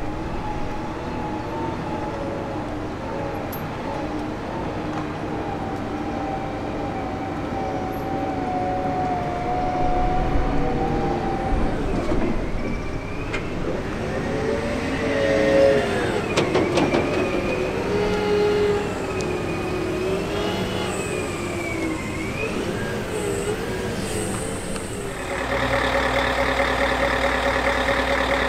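Wheel loader's diesel engine running steadily as it drives with a loaded bucket, then its pitch dips and rises repeatedly about halfway through as the engine revs under load. Near the end the sound cuts abruptly to a different steady hum.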